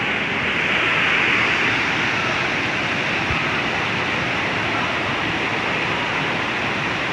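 Whitewater rapids rushing over and between boulders in a river: a steady, unbroken rush of water.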